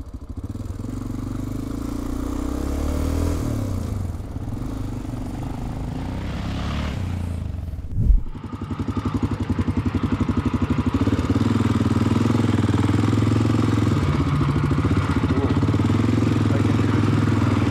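Honda Dominator 650's single-cylinder engine running under way, its pitch rising and falling with the throttle. About eight seconds in, a rising whoosh ends in a sharp thump. After that the engine runs steadily with an even, rapid pulsing.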